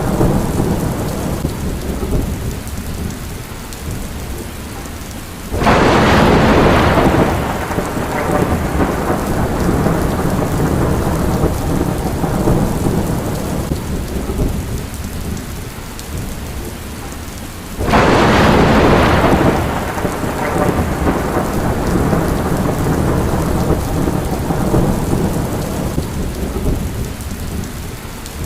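Steady rain of a thunderstorm, with two loud claps of thunder about five seconds and eighteen seconds in, each breaking suddenly and fading off into a rumble over the next few seconds.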